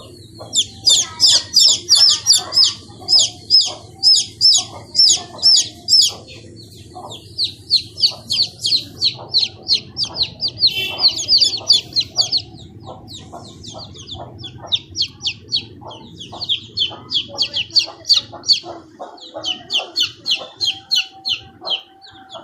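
Bird calls: a long, rapid run of high chirps, about four or five a second, pausing briefly past the middle, over lower short clucking calls and a steady low hum.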